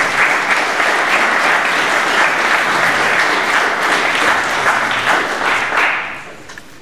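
Audience applauding, a dense clapping that sets in at once and dies away about six seconds in.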